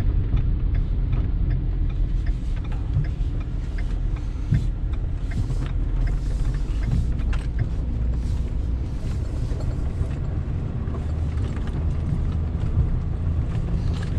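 A vehicle running while being driven, a steady low rumble with scattered light clicks and rattles.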